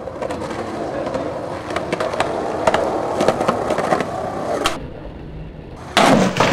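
Skateboard wheels rolling on concrete, with sharp clacks of the board against the ground. Near the end comes a loud clack as the board hits the ground.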